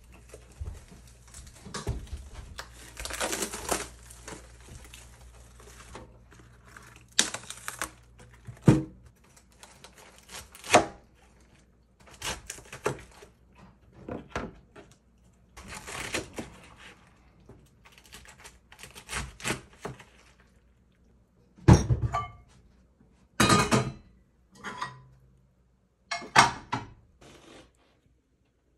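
Napa cabbage handled in a rustling plastic bag, then cut with a kitchen knife on a cutting board. The cuts come as separate strokes with thunks on the board.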